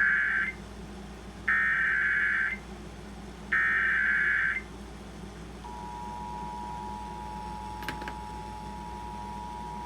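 Emergency Alert System SAME header: three warbling digital data-tone bursts, each about a second long with about a second between them. About a second after the last burst, the steady two-tone EAS attention signal begins and holds, announcing the national EAS test.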